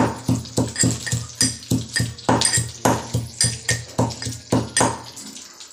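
Unpeeled garlic cloves being pounded in a small steel cup: a fast, even run of ringing metallic clinks, about three or four a second, stopping about five seconds in.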